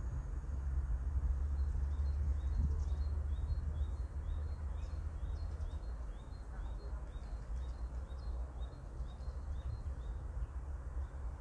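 A small bird chirping over and over, about two short high chirps a second, over a steady low rumble.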